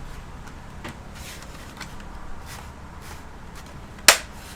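Laptop being handled during reassembly: faint scattered ticks and rustles of plastic parts, then one sharp loud click near the end.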